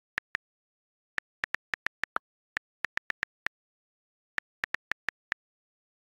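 iPhone on-screen keyboard key clicks as a message is typed: about twenty short, crisp ticks in quick runs of several, with brief pauses between the words.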